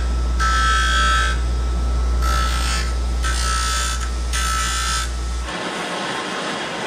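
Ryobi 8-inch bench grinder running with a steady hum while a small plastic part is pressed to the wheel in four short passes, each a rasping grind with a high whine, to grind it down for threading. About five and a half seconds in the grinder sound stops and the steady hiss of a handheld gas torch flame takes over.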